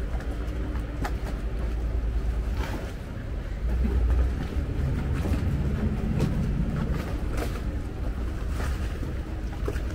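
Canal-side ambience: a steady low rumble of boat engines on the water mixed with wind, swelling briefly about four seconds in, with scattered light clicks and knocks.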